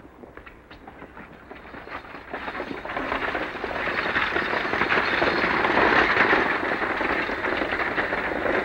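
A horse-drawn stagecoach approaching: the team's hoofbeats and the coach's wheels make a dense rattling clatter. It starts faintly under a few scattered hoofbeats and grows loud from about two seconds in, peaking around the middle.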